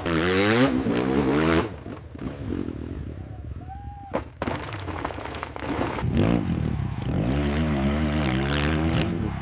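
Dirt bike engine revving hard, its pitch rising and falling in two spells, the first right at the start and the second from about six seconds on. A sharp knock sounds in the quieter stretch between them.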